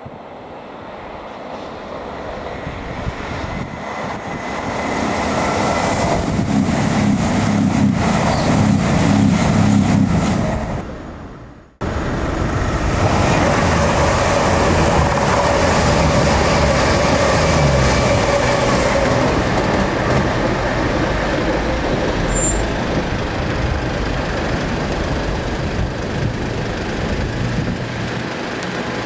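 Diesel passenger trains passing on the railway. A pair of CrossCountry Voyager diesel multiple units approach and grow steadily louder, with a deep engine rumble. After an abrupt cut about twelve seconds in, another diesel multiple unit passes close by with steady engine and wheel noise to the end.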